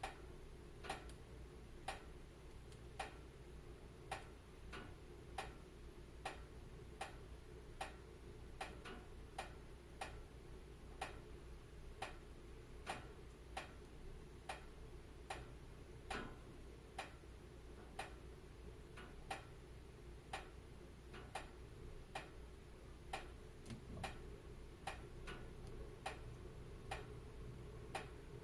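Wood fire crackling in a fireplace: sharp pops about once a second, now and then closer together, over a faint steady low rush.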